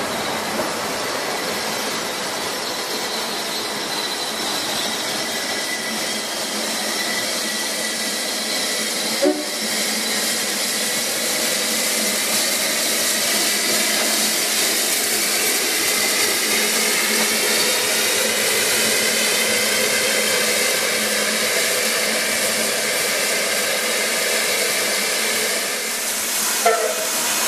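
Narrow-gauge steam locomotive hissing steadily as steam blows off around it. Two short sharp sounds break through, one about a third of the way in and one near the end.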